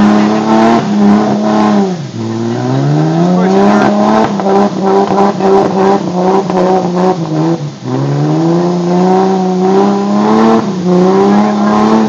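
Jeep Cherokee XJ's engine revving hard and held high under load as it tries to dig out of a deep mud-and-water pit. The revs drop briefly twice, about two seconds in and about eight seconds in, and climb back up each time.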